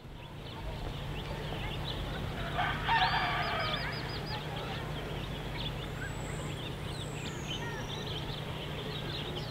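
Countryside ambience fading in: many small birds chirping, and a rooster crowing once about three seconds in, the loudest sound. A steady low hum runs underneath.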